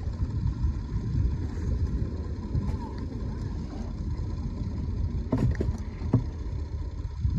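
Steady low rumble of wind on the microphone with the wash of beach surf, and a few short knocks between about five and seven seconds in.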